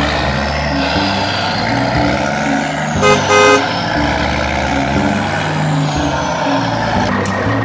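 Upbeat background music with a vehicle horn honking twice in quick succession about three seconds in.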